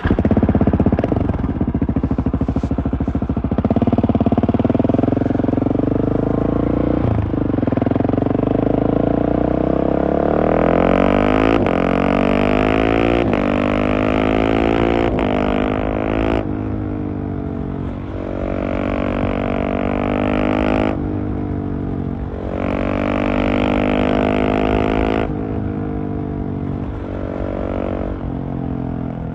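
Husqvarna 701's big single-cylinder engine through a LeoVince Nero exhaust. It runs evenly for several seconds, then accelerates hard through the gears: the pitch rises again and again, broken by quick quickshifter upshifts every second or so. The throttle closes and the revs fall about halfway through, and the cycle repeats twice more near the end.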